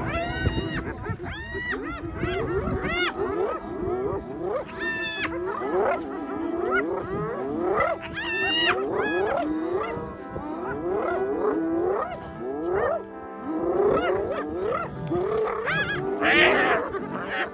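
Many overlapping animal calls, a few each second, each rising and then falling in pitch, with a louder, higher cry near the end. A faint steady hum runs underneath.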